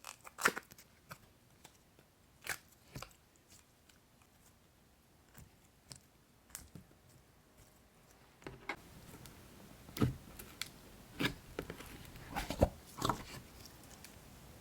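Slime being handled and pressed, giving irregular wet clicks and crackles; the clicks come sparsely at first and then bunch up and get louder in the second half.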